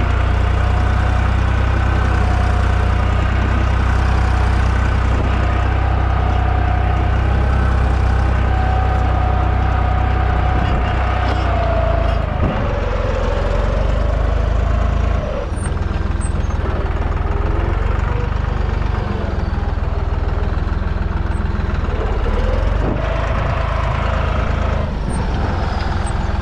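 Deutz 55F tractor's diesel engine running steadily while pulling a row cultivator between okra rows. Its note drops and recovers twice, about halfway through and again near the end.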